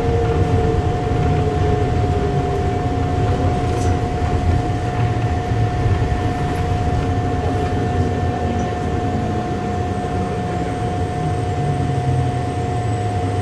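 Airport people-mover tram running on its guideway, heard from inside the car: a steady rumble with a constant hum over it, easing a little as it enters the station.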